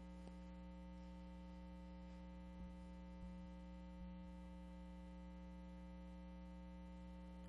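Near silence with a steady electrical mains hum, and a few faint soft knocks around the middle.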